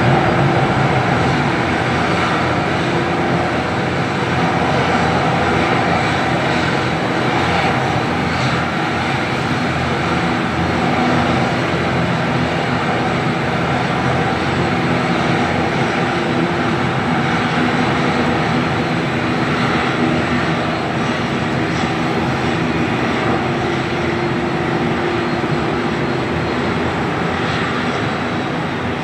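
Pratt & Whitney PW127M turboprop engine of an ATR 72-600 running steadily during pushback, a continuous propeller and engine drone.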